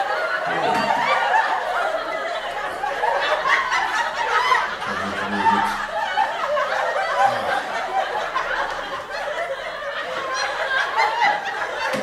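Canned laugh track: many people laughing and chuckling together, steady and unbroken.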